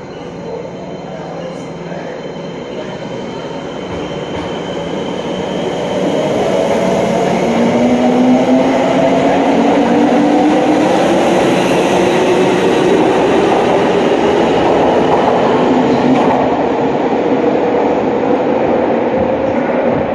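Subway train pulling out: the whine of its electric traction motors climbs steadily in pitch as it gathers speed, over the rumble of the wheels on the rails. The sound grows louder over the first several seconds, then holds.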